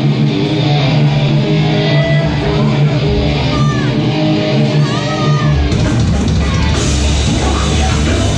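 Metalcore band playing live: distorted electric guitars ring out for the first few seconds. About five and a half seconds in, heavy bass and drums come crashing in and the full band plays on.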